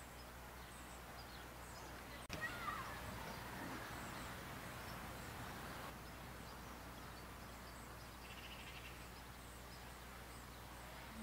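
Quiet outdoor ambience with faint bird chirps. A click comes about two seconds in, followed by a few seconds of soft airy hiss that stops about six seconds in.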